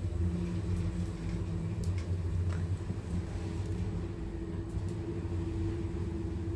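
Lift car travelling in its shaft, heard from inside the car: a steady low drive hum with a faint, steady higher tone and a few light clicks. The drive machine sits in the shaft head.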